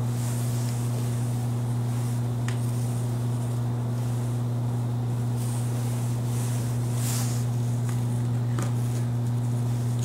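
A steady low hum, with faint rustling and a few light clicks from handling a laptop hard drive.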